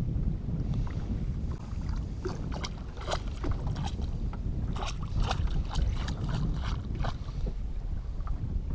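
Small waves lapping and slapping against the side of a fishing boat, with wind rumbling on the microphone; a flurry of small splashes and ticks comes in the middle.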